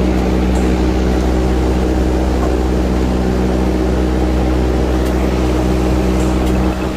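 A machine running steadily: a constant low hum with a noisy rush over it, with no change in speed.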